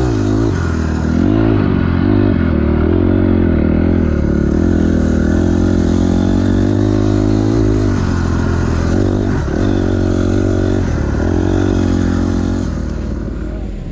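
2006 Honda CRF250R four-stroke single-cylinder dirt bike engine being ridden, its pitch rising and falling again and again as the throttle opens and closes. The sound fades down near the end.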